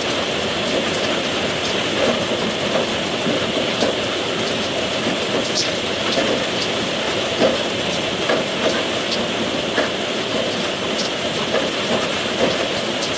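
Steady rain falling, an even hiss with scattered individual drops ticking sharply on top.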